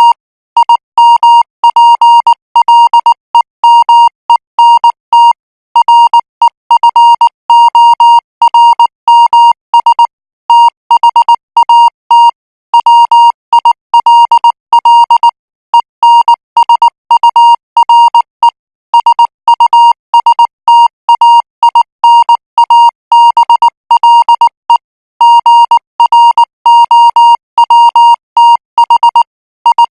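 Morse code practice tones at 18 words per minute: a single steady beep keyed on and off in short dots and longer dashes, with brief gaps between characters and words.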